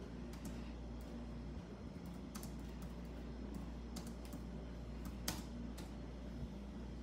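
Scattered light clicks and taps at an irregular pace over a low steady hum; the sharpest click comes about five seconds in.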